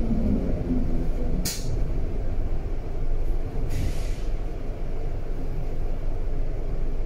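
Berlin U-Bahn A3L71 train with a steady low rumble, and two short hisses of compressed air from its air brakes: a sharp one about one and a half seconds in and a longer one about four seconds in.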